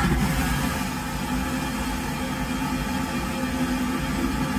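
Cruise ship vacuum toilet flushing: a loud, steady rushing suction with a low hum underneath, starting abruptly.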